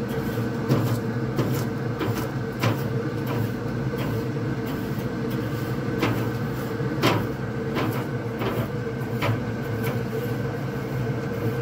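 Grill brush scraping back and forth over the hot grates of a Traeger pellet grill in about a dozen irregular strokes, over the steady hum of the running grill.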